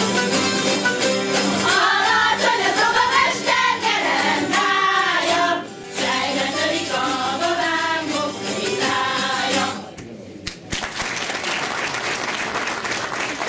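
Hungarian citera zither ensemble plucking a folk tune, joined by a folk song choir singing with it. The music stops about ten seconds in, and the audience breaks into applause.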